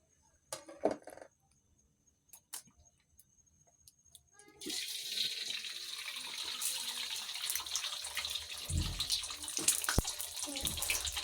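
An egg frying in hot oil in a pan, sizzling and crackling steadily from about four and a half seconds in. Before that, a few faint clicks and a short clatter about half a second in.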